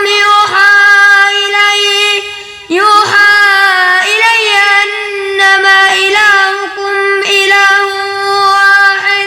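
Quran recitation in melodic tajweed style by a single high voice: long held notes with ornamented runs, pausing for breath about two and a half seconds in and again near the end.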